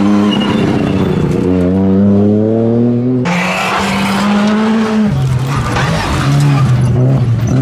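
Rally cars passing at speed in quick succession, engines revving hard and climbing in pitch, then stepping down between gears. In the middle there is a stretch of loud hiss from tyres sliding on loose gravel.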